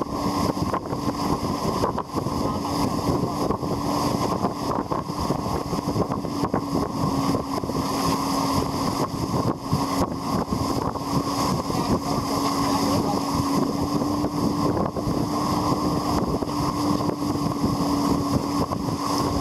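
Motorboat engine running steadily at speed with a constant hum, under heavy wind buffeting the microphone and rushing water as the banana boat is towed.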